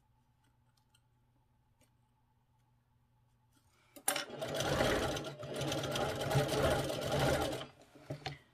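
Juki semi-industrial sewing machine stitching fabric: after about four seconds of near quiet with a faint hum, the machine starts and runs fast for about three and a half seconds, then stops.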